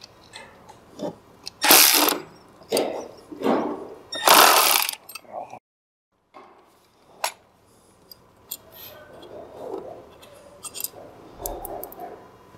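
Cordless 3/8-inch ratchet running in several short bursts as it backs out the weight pins of a snowmobile's primary clutch. Later, light clicks and handling of the loosened parts.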